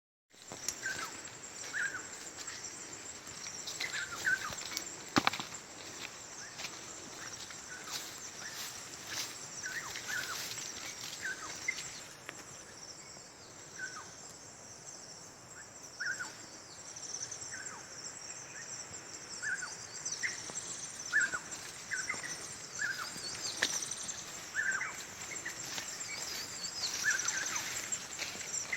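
Outdoor natural ambience: a steady high-pitched insect drone with short, falling bird calls repeating every second or two, and scattered clicks.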